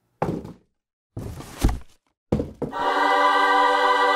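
Intro sound effects and jingle: three short thumps, the second the longest, then a held choir-like chord that starts a little before three seconds in and sustains.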